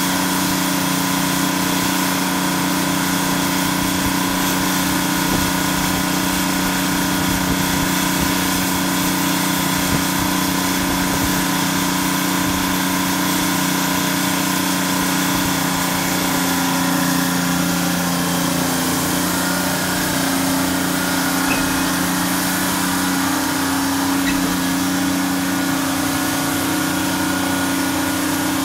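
Pyke rail crane's engine running steadily at a low, even speed, with a slight change in its pitch about two-thirds of the way through.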